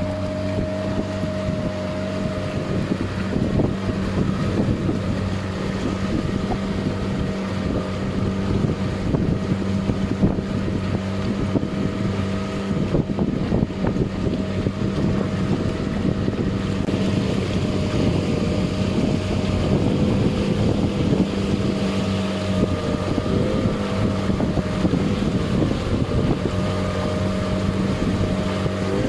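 Motorboat engine running at a steady speed, with wind buffeting the microphone and water rushing past the hull.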